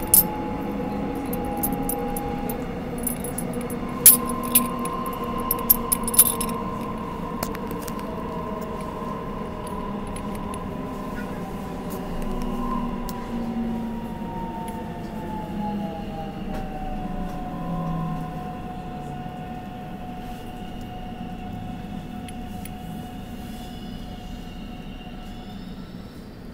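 Miniature metal plates and dome lids clinking against each other a handful of times in the first six seconds. Underneath, an electric commuter train runs steadily, its motors whining in several tones that slide lower in pitch about halfway through.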